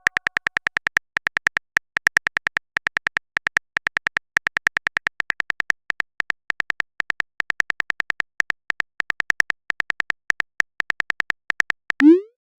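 Rapid phone-keyboard typing clicks, a texting sound effect, about eight a second with short pauses between bursts. A short rising swoop near the end, the kind played when a message is sent.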